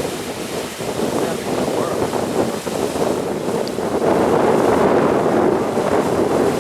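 Waterfall rushing and splashing steadily, a little louder from about four seconds in.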